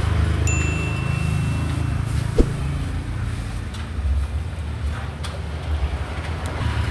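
Steady low engine rumble, like a motor vehicle running at idle. There is a thin high-pitched tone from about half a second in to about two seconds, and a sharp click at about two and a half seconds.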